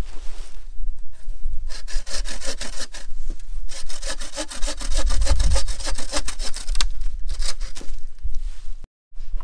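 A bow saw cutting through a fresh birch pole in fast, steady back-and-forth strokes. The sawing is loudest midway and stops abruptly near the end.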